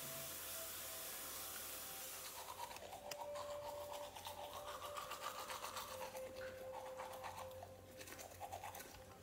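A manual toothbrush scrubbing teeth in quick rhythmic strokes, starting about two seconds in, after a steady hiss.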